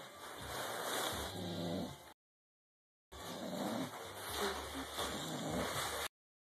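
English bulldog snoring in its sleep, a low rough rasp in uneven breaths. The sound cuts out completely for about a second in the middle and again near the end.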